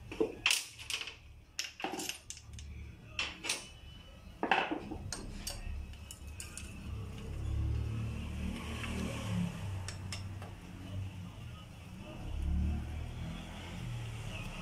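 Metal bolts and hand tools clinking and tapping as the crankcase screws of an AKT NKD motorcycle engine are fitted and tightened, with a cluster of sharp clicks in the first five seconds and a few more later. A low hum runs underneath.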